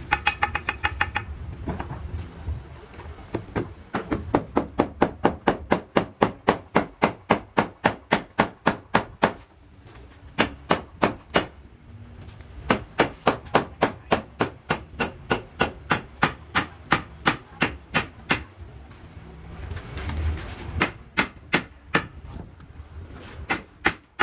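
Hammer blows on wood, fast and even at about three a second, in runs broken by a few short pauses.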